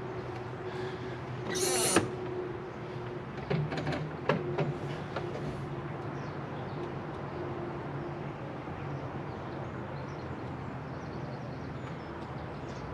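A brief rustle and a few knocks and creaks from handling the tractor's cab and controls, over a steady low hum. The Deutz-Fahr 4.50's starter makes no sound at all, not even a click: a dead starter circuit, which the owner puts down to a poor earth.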